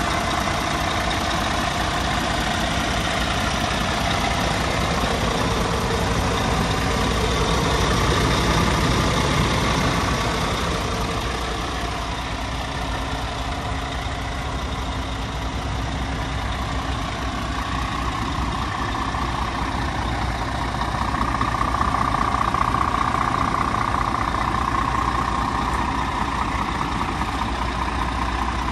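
Scania P370 Euro 6 tipper's 9-litre five-cylinder diesel engine idling steadily.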